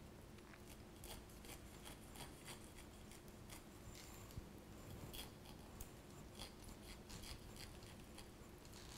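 Faint, irregular crisp crunching ticks of a kitchen knife scoring through the flesh of a halved pineapple.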